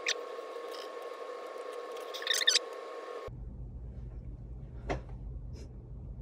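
Hands working through hair and setting bobby pins: soft rustling and a few small clicks, over a steady faint hum that stops about three seconds in.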